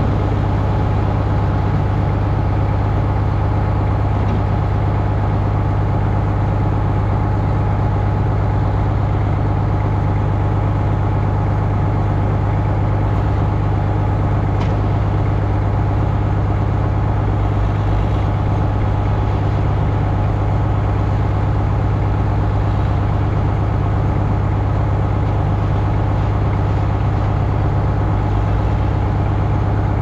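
Farm tractor engine idling steadily close by, a constant low hum that does not change in pitch or level.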